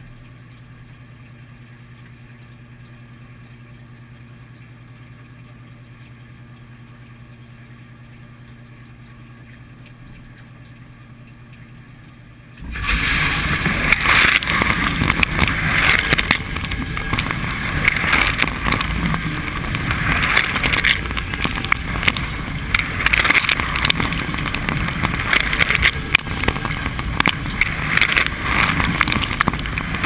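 A dishwasher's motor hums steadily from inside the machine, then about twelve seconds in the wash spray starts suddenly: loud rushing and splashing water that swells about every two and a half seconds as the rotating spray arm sweeps past.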